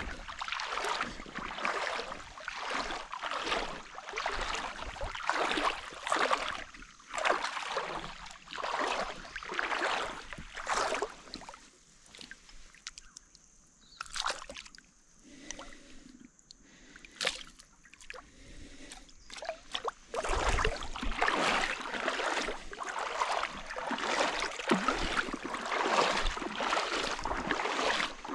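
Water splashing and sloshing around a kayak in a regular rhythm of about one stroke a second, typical of paddling. Midway it goes quieter for several seconds, with a few sharp clicks, and then becomes a denser, steadier wash of water near the end.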